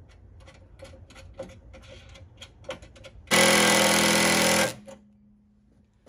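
A few light clicks and taps of parts being handled, then a cordless drill runs hard for about a second and a half, driving a fastener into the truck's front support, and stops abruptly.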